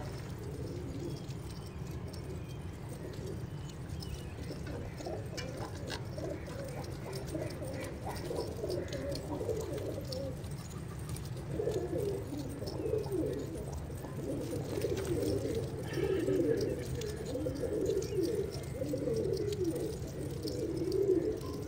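A flock of domestic pigeons cooing, many calls overlapping, getting denser and louder about halfway through, over a steady low hum.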